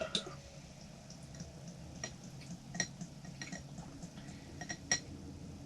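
Several light clinks of a spoon against a dish while eating soup, sharp and ringing briefly, coming irregularly about a second apart.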